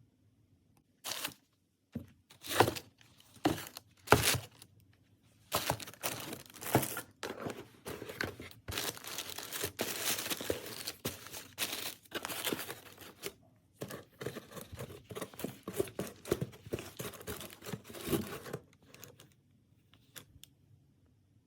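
Packaging being torn open and crinkled: a few separate sharp rips in the first few seconds, then a long stretch of close, busy rustling and crinkling of wrapping that dies away near the end.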